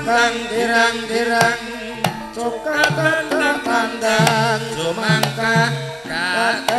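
Javanese gamelan music: metallophones sounding sustained notes over a steady rhythm of hand-drum strokes, with a high, wavering sung vocal line.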